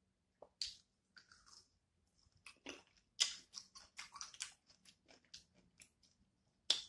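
Close-miked chewing and mouth smacking on crisp cucumber, with a run of short crunchy bites. The loudest crunches come a little after three seconds in and again just before the end.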